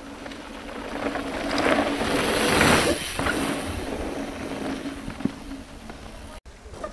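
Downhill mountain bike passing close by on the trail: tyre and drivetrain noise swells to a peak about two and a half seconds in and fades away, over a steady low hum.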